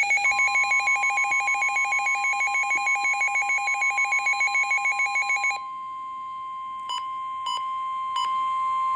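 Weather radio alert: the receiver's electronic alarm beeps in a fast, even pulse over the steady NOAA Weather Radio warning alarm tone near 1 kHz. The beeping stops about five and a half seconds in while the steady tone carries on, with three short beeps near the end. The tone marks an incoming weather warning, here a severe thunderstorm warning.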